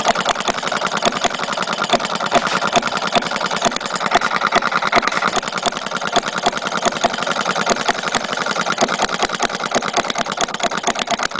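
Small single-cylinder non-compression gasoline model engine (a Rudy Kouhoupt 'Pioneer') running steadily. It makes a fast, even clatter of firing strokes and valve and breaker-point clicks.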